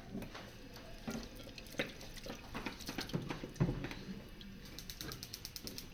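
Kitchen work sounds: scattered light knocks and clatter of utensils and dishes, then a quick run of evenly spaced ticks near the end.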